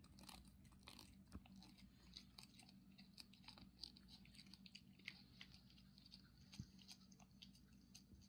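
A cat licking puree from a squeezed Churu treat tube: faint, irregular wet clicks and smacks of its tongue, several a second.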